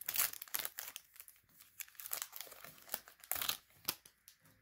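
Pokémon Sword and Shield booster pack's foil wrapper being torn open and crinkled by hand: a quick run of crackly rustles, loudest just after the start and again about three and a half seconds in.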